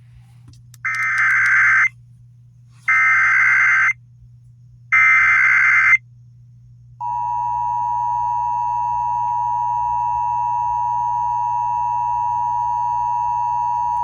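Emergency Alert System activation: three harsh one-second bursts of SAME header data with short gaps, encoding a severe thunderstorm warning, then about seven seconds in the steady two-tone EAS attention signal begins and holds.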